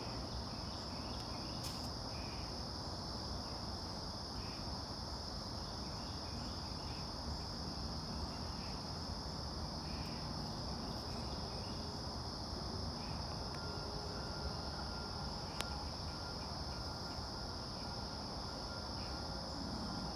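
Steady chorus of insects: a continuous high-pitched trill with a few faint chirps, over a constant low rumble.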